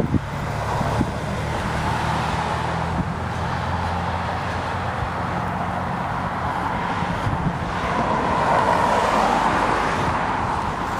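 Road traffic at a street corner: a motor vehicle's engine hums steadily, and near the end a car passes with a swell of tyre noise.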